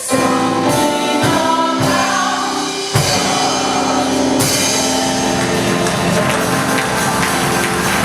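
Gospel choir and band playing the loud closing of a song, with sustained sung chords over drums.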